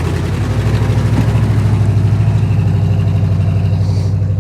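A vehicle engine running steadily at low revs close by, with a fast, even pulse. It gets slightly louder about a second in.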